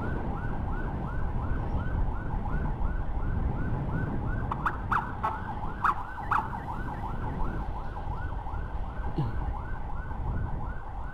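Emergency siren in a fast yelp, its pitch sweeping up and down about three times a second, over the steady running of a motor scooter and its road noise.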